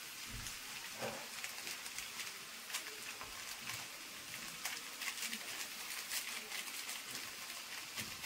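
Soaked chickpeas frying in oil in a wok: a steady sizzle with frequent sharp crackles.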